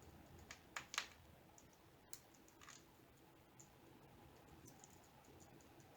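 Faint clicks and taps of jewelry pliers working small metal jump rings. There is a quick cluster of clicks in the first three seconds, the loudest about a second in, then only occasional light ticks.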